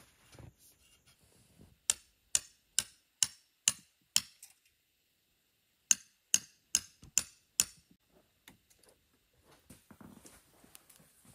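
Two runs of sharp, evenly spaced knocks, about two a second: six strikes, a short break, then five more.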